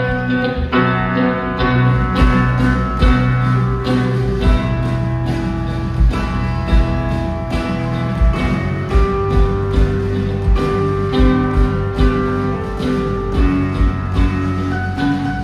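Live band playing an instrumental passage on electric guitars, keyboard and drums, with a steady drum beat under sustained chords; the full band comes in abruptly at the start.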